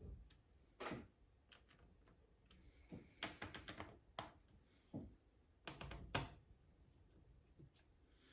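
Faint, irregular clicks and taps of hands working on a laptop's plastic housing and screen parts, with a quick cluster of clicks about three seconds in.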